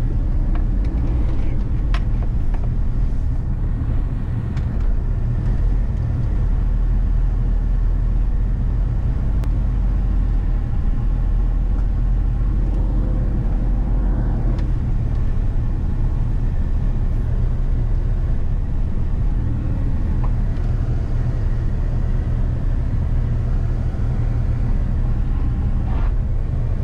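Steady low rumble of a car driving, the engine and road noise heard from inside the cabin, with a few faint clicks.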